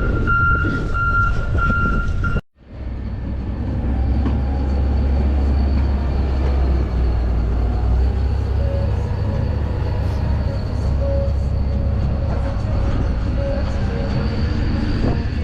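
City street traffic with a heavy vehicle's engine giving a steady low rumble. The sound breaks off abruptly about two and a half seconds in, then the rumble comes back.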